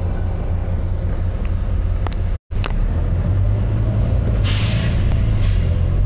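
Volvo B9TL double-decker bus heard from on board: its diesel engine runs with a steady low drone, broken by a brief dropout with clicks about two seconds in. About four and a half seconds in there is a short hiss of compressed air from the bus's air system.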